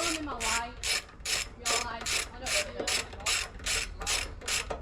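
Hand socket ratchet worked back and forth on a fastener, a short raspy clicking burst on each return stroke, about two and a half strokes a second.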